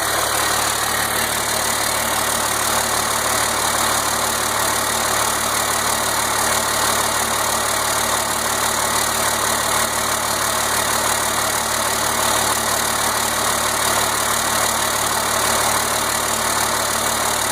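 Freshly rebuilt 1992 Cummins 5.9-litre 12-valve diesel straight-six running steadily on its first start after the rebuild.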